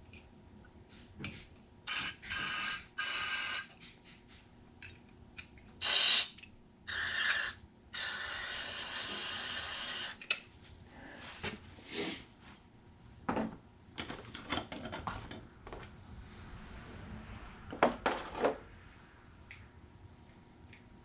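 Hand work on small generator carburetor parts: short rubbing and hissing strokes, light clicks of small metal parts, and a steady hiss of about two seconds near the middle.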